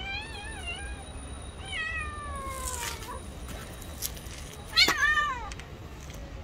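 Cats yowling at each other in a territorial standoff: a wavering yowl, then a long call falling in pitch. About five seconds in comes a sudden loud outburst with a short yowl as one cat lashes out at the other.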